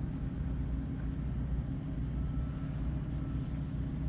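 Steady low hum of a large ship's engine running, an even drone that does not change.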